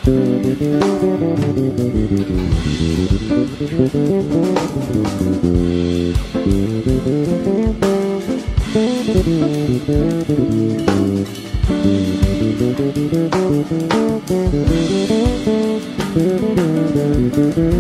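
Background music: a band track with guitar, bass guitar and drums, playing steadily with a regular beat.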